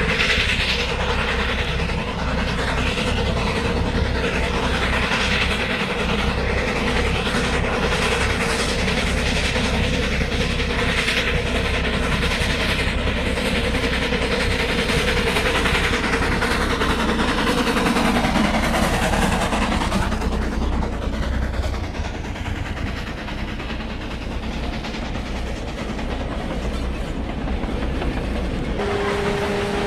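Steam locomotive hauling a train of loaded sugarcane wagons, running past with a pitch that falls about two thirds of the way through. The wagons roll by close with their wheels clattering over the rail joints.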